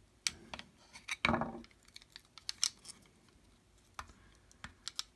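Small metal clicks and taps of a flat-blade screwdriver working a Cold Steel Recon 1 folding knife's handle apart, with one louder, longer scrape a little over a second in.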